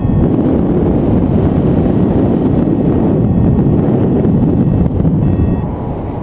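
Wind rushing over the camera's microphone in paragliding flight: a loud, steady, rumbling noise that eases a little near the end.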